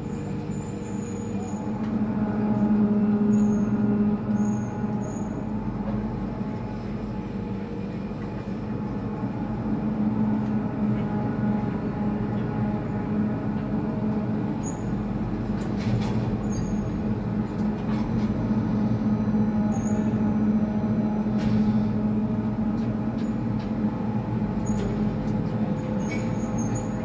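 Tower crane's electric drives running, heard from the operator's cab: a steady machine hum with a low whine that swells a little now and then as the crane slews round.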